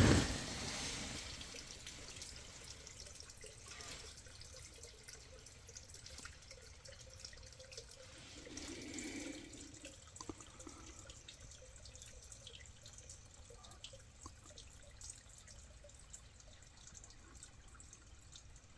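Quiet night stillness: a faint, steady hiss with scattered faint ticks, and a brief low sound about nine seconds in.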